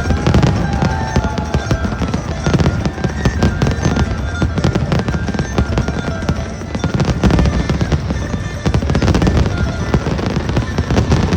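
Fireworks display going off without pause: a dense stream of bangs and crackling over a deep rumble of booms.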